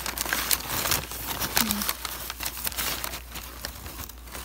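Crumpled newspaper packing rustling and crinkling in irregular crackles as it is handled and pulled out of a shipping box.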